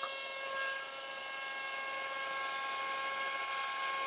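Benchtop mill-drill running with a steady whine.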